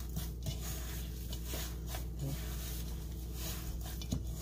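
Bare hand kneading wet masa dough in a stainless steel bowl: soft, irregular squishing and rubbing against the bowl, over a steady low hum.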